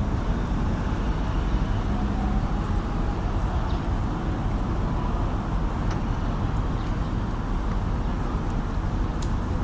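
Steady outdoor city noise: a low rumble of distant road traffic.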